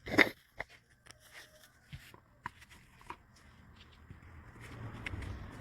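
Small hardware and tools handled on a workbench: a sharp knock just after the start, then scattered clicks and taps, with a low hum building up over the last couple of seconds.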